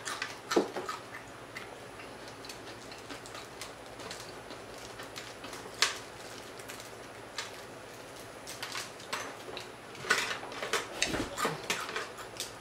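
Whole deep-fried croaker being torn apart by hand: scattered crackles and snaps of the crisp fried crust and fins, with light clicks against a glass platter. The clicks come thicker about ten seconds in.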